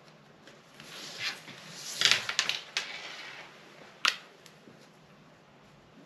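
Paper pattern and tape measure handled on a table while the curve is marked: rustling and scratching with several sharp taps, loudest about two seconds in, and a single sharp click about four seconds in.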